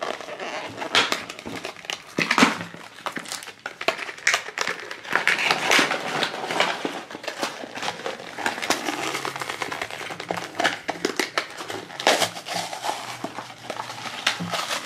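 Plastic toy packaging crinkling and crackling as a clear plastic capsule and the small blind bag inside are handled and opened, with irregular clicks and rustles and a few sharper clicks.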